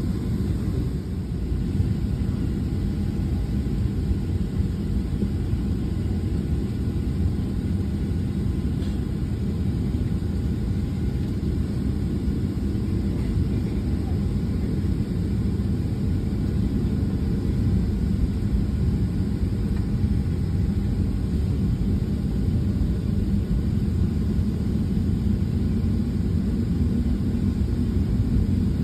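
Steady low rumble and hum inside a parked airliner's cabin, with a faint steady whine above it.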